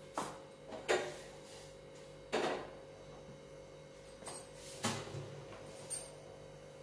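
Pots and utensils being handled at a gas stove: about six separate clinks and knocks of metal cookware, spread a second or so apart.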